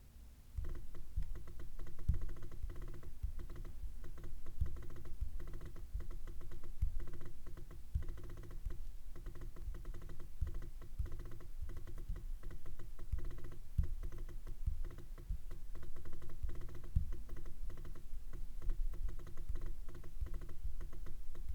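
Apple Magic Trackpad being worked by fingers: a rapid, irregular run of light clicks and taps that starts about half a second in.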